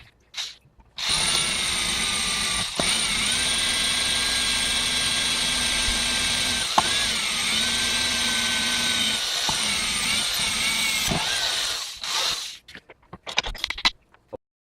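Power drill running steadily as it drills through a hollowed-out padlock body, a steady whine with a few brief dips in pitch under load. It stops near the end, followed by a few light clicks and knocks.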